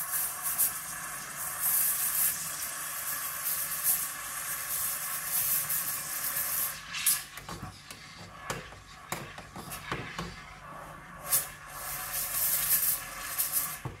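Steam wand of a Kmart espresso machine hissing into milk in a stainless steel frothing jug, frothing and heating it; the wand is missing its metal frothing tip. The hiss is strongest for about the first seven seconds, then quieter, broken by several short sharp spurts.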